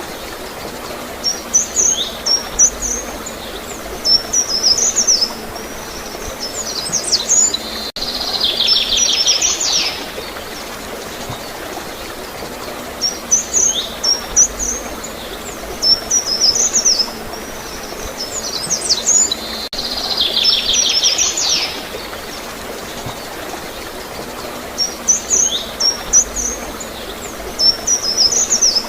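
Small songbirds chirping in clusters of quick high-pitched calls, twice breaking into a longer buzzy trill, over a steady wash of gurgling, flowing water. The same run of calls comes round again about every twelve seconds.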